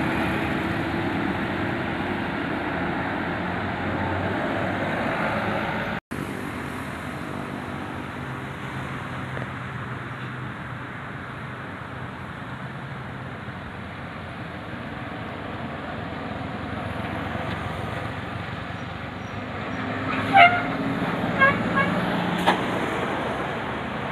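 Road traffic, with a large vehicle's engine running past, its tone falling, over the first few seconds. Near the end come a few short, sharp horn toots.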